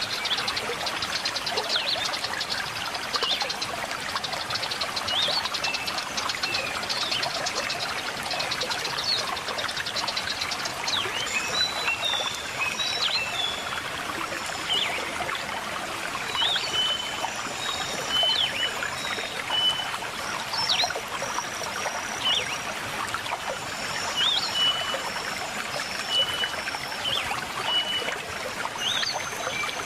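River water babbling and trickling steadily over stones, with birds calling above it: a fast, high trill in the first third, then short, high whistled notes and chirps repeating through the rest.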